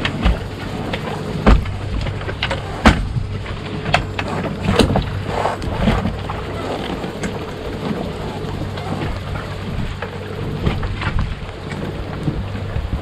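Sharp metal knocks and clunks from a Honda 9.9 outboard motor being handled on its stern-rail mount, the loudest about one and a half, three and five seconds in. Under them runs a steady low hum.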